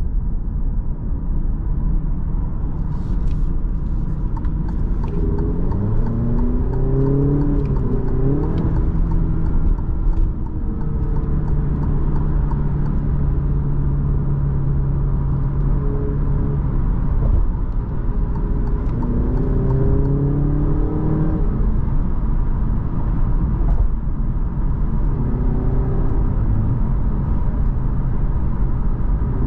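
Interior sound of a 2022 Alfa Romeo Giulia Veloce's 2.0 turbocharged four-cylinder engine under way at motorway speed over a steady road and tyre rumble. The engine note rises in steps a few times as the car accelerates through the gears and holds steady at cruise in between.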